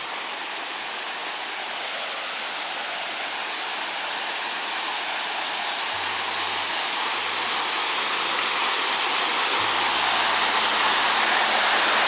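Steady rushing water, growing gradually louder.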